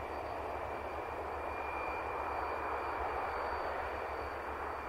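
Fokker F27 Friendship's Rolls-Royce Dart turboprop engines running: a steady high whine over an even rushing noise.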